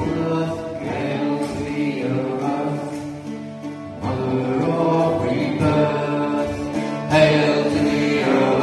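Sacred circle chant sung by a group, voices holding long notes, accompanied by violin and a plucked string instrument; it dips briefly a little before halfway, then swells again.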